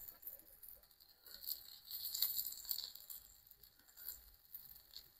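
Butter sizzling and crackling faintly on a hot cast iron griddle plate, a little louder for a spell partway through.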